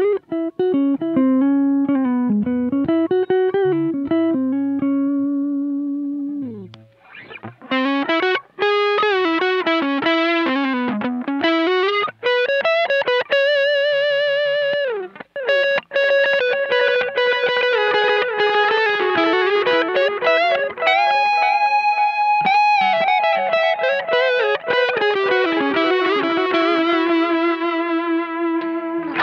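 Electric guitar played through a Donner Blues Drive overdrive pedal with delay from a Donner Echo Square, giving a lightly overdriven lead tone. It plays a melodic single-note solo of held notes with vibrato and string bends.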